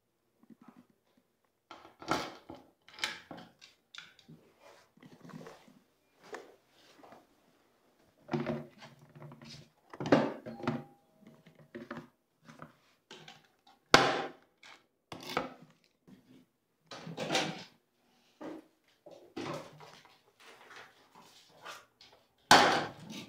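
Irregular knocks, clacks and thunks from a wooden shoe locker being handled as its door is opened and shut and shoes are set inside. The loudest knocks come about 10, 14 and 22 seconds in.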